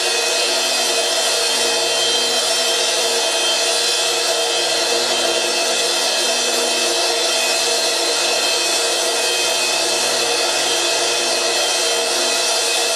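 A cymbal on a stand sounded continuously by friction. It makes a loud, unbroken metallic hiss with many ringing overtones held steady throughout.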